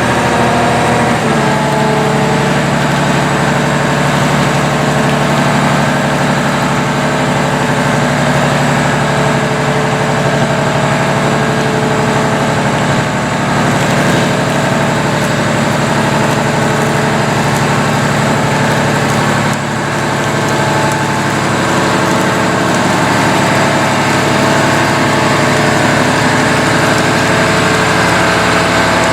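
John Deere 1270E forestry harvester's diesel engine running steadily, its note stepping to a different pitch about a second in and dipping briefly near the middle.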